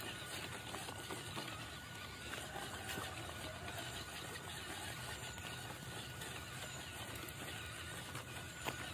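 WPL C54 RC crawler's small electric motor and gearbox giving a faint, steady whine as the truck creeps over loose stones, with scattered small clicks from the tyres on the rocks.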